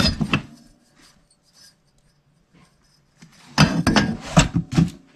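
Old metal car parts, exhaust and emission-system pieces, clanking and shifting in a cardboard box as they are handled, with the cardboard rustling. A brief clatter at the start, then a louder run of knocks and rustling about three and a half seconds in.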